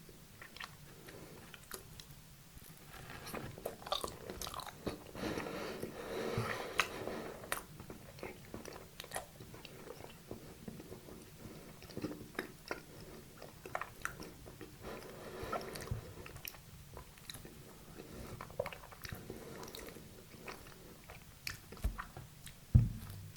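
Close-miked chewing and biting of soft cake dessert: wet mouth clicks and light crunches, thickening into denser spells of chewing now and then. A loud low thump comes near the end.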